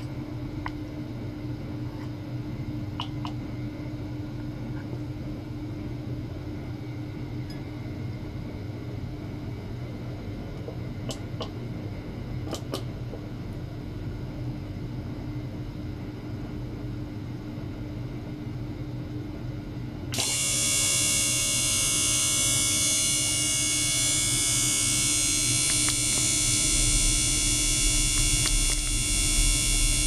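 Small electric circulation pump running steadily, a low hum with a steady mid tone. About two-thirds of the way through, a loud, high hiss with many steady high tones cuts in abruptly and holds.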